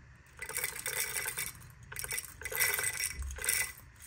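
Whole coffee beans poured into the hopper of a Turin DF64P grinder, rattling and clicking as they fall into the chamber, in two bursts with the second longer.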